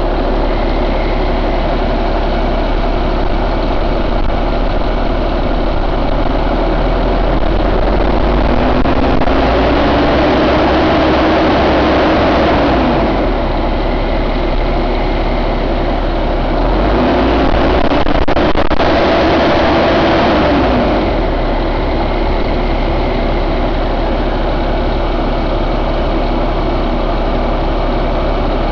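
2015 Cummins ISX15 inline-six diesel engine running at idle. It is revved up twice, each time for a few seconds, about a third of the way in and again a little past halfway, and each time it drops back to idle.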